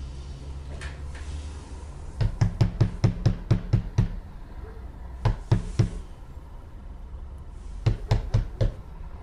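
Someone knocking hard on a door: a run of about ten quick knocks, then three more, then another run of about five near the end.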